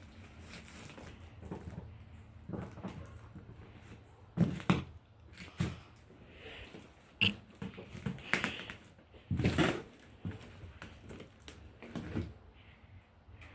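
Footsteps and scuffing on debris and boards, with irregular knocks and thuds and a brief squeak, as someone climbs in through a doorway.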